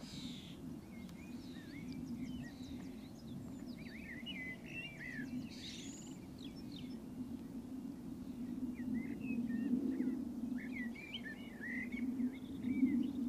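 Small birds chirping and twittering throughout, many short rising and falling notes, over a steady low hum, with a brief rustle about halfway through.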